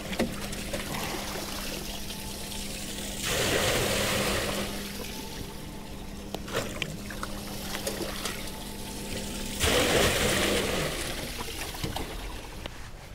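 River water poured from a bucket into a boat's empty live well to fill it by hand. There are two pours about six seconds apart, each a second or so of splashing, with dribbling between them.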